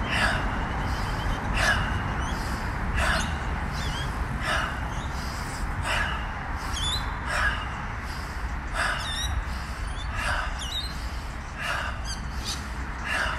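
Forceful rhythmic breaths out, one sharp whooshing exhale about every second and a half, timed to swinging arm-and-knee-bend exercise movements.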